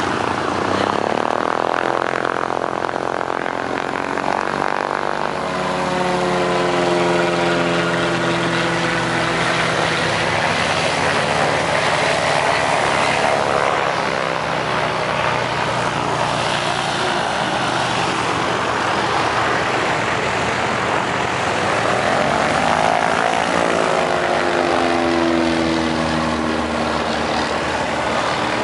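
Airplane engines droning steadily as aircraft taxi and move along the runway, the pitch of the drone slowly bending up and down as they pass, most clearly about midway and again near the end.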